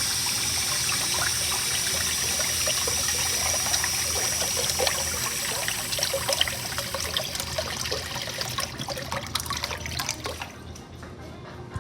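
American Standard Washbrook urinal flushing: a steady rush of water that breaks up into gurgles and trickles from about six seconds in, and dies down near ten and a half seconds.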